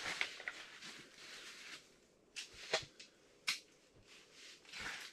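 Scattered short clicks and soft rustles of fishing gear and clothing being handled, about half a dozen over a few seconds, in a small, quiet shelter.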